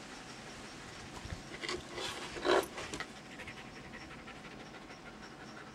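Dog panting in quick breaths, with a louder, breathy burst about two and a half seconds in.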